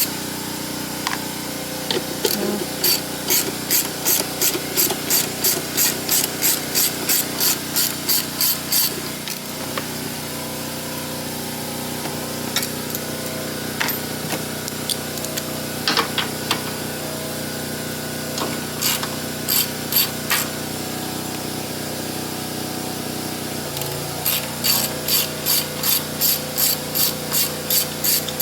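Ratchet wrench clicking in runs of about three strokes a second, stopping and starting again several times, over a steady mechanical hum.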